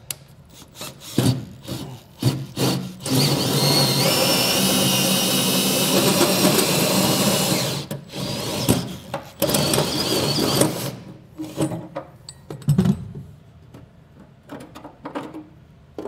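Cordless drill driving a 2-inch Hole Dozer hole saw through a truck bed's spray-in liner and steel bed wall: a few short bursts of the trigger at first, a steady cut of about five seconds in the middle, then more short bursts as the saw finishes the hole.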